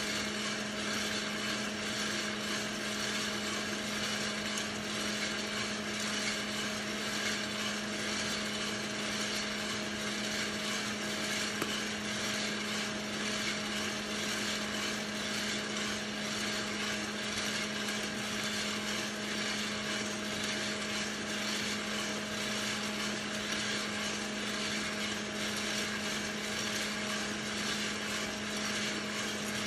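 Hottop drum coffee roaster running: a steady motor and fan hum, with coffee beans rattling as they tumble in the rotating drum.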